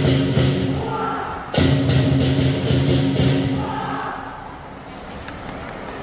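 Lion dance percussion band playing: big drum, clashing cymbals and a ringing gong. A loud accented hit comes about a second and a half in, and the sound then dies down to lighter, sparser cymbal taps near the end.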